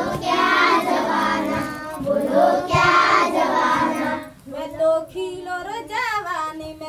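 A group of children singing a Hindi rhyme together in unison; about four seconds in the chorus drops away and fewer, clearer voices carry the next line, in a call-and-response manner.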